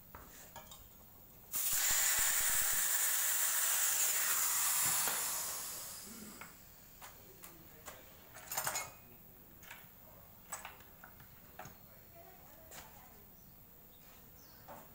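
Compressed air hissing from an air line into a freshly patched tubeless scooter tyre. It starts suddenly about a second and a half in and fades away after about four seconds. Light knocks and clicks follow as the wheel is handled.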